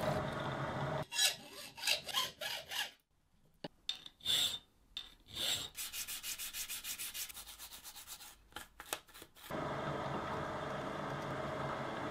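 Hand sanding: a small piece rubbed back and forth on a sheet of sandpaper in short strokes, quickening into a fast, even run in the middle. A bench drill press runs briefly at the start and again for the last couple of seconds.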